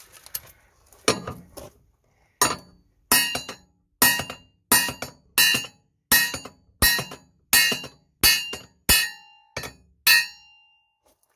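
A small hammer striking a narrowboat's propeller blade while a lump hammer is held behind it as a backing stock: about fourteen sharp metal-on-metal blows at a steady pace of roughly one and a half a second, each ringing briefly. The blows are knocking a ding out of the blade.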